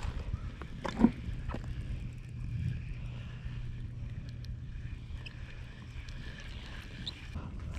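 Spinning reel on a telescopic rod being cranked to wind in line, over a steady low rumble, with one sharp click about a second in.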